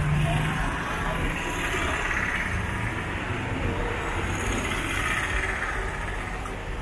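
Street traffic on a city road: cars and three-wheeled auto-rickshaws driving past, a steady rumble that swells twice as vehicles go by, about two and five seconds in.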